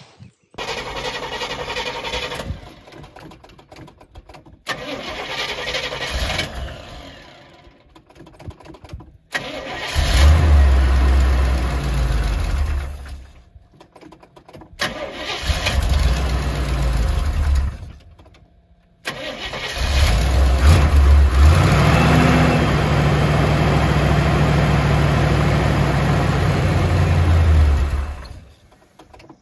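A 1977 Corvette's L82 350 small-block V8 being cranked and started several times, catching and running unevenly in short spells that cut off abruptly, then running steadily for about nine seconds near the end. The hard starting is a sign of the Quadrajet carburetor's faulty choke.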